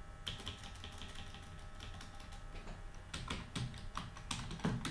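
Typing on a computer keyboard: quick runs of key clicks, one short run just after the start and a longer, denser run from about three seconds in.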